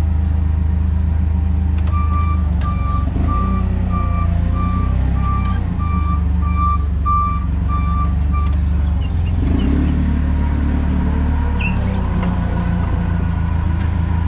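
Forklift engine running steadily while its reversing alarm beeps about twice a second. The beeping starts about two seconds in and stops after some six seconds.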